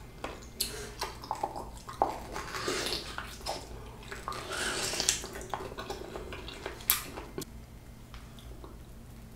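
Close-miked wet chewing and slurping of a juicy ripe peach, full of sharp smacking clicks, with a fresh bite into the fruit midway. Quieter over the last couple of seconds.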